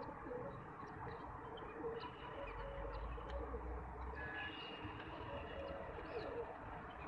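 Birds calling: scattered short, thin chirps and whistled notes over a steady background hiss, with a low rumble from about two and a half to four seconds in.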